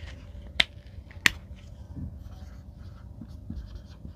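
Two sharp clicks about two-thirds of a second apart, then faint scratchy strokes of a pen writing.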